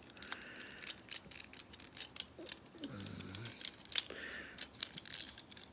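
Irregular light clicks and small rattles of the plastic parts of a Robots in Disguise Soundwave toy figure being handled and pegged into place during its transformation.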